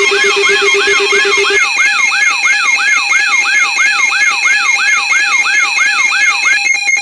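Layered electronic alarm tones. A siren-like tone sweeps downward about three times a second over steady tones, and a pulsing low tone drops out under two seconds in. Near the end the alarm switches to a rapid beeping tone.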